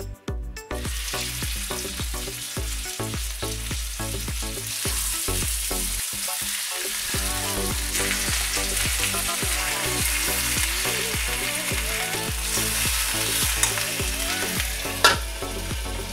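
Herbed chicken breasts sizzling in hot olive oil in a steel frying pan, the sizzle starting about a second in as the meat goes into the oil and holding steady. Near the end there is one sharp clink as a lid goes onto the pan.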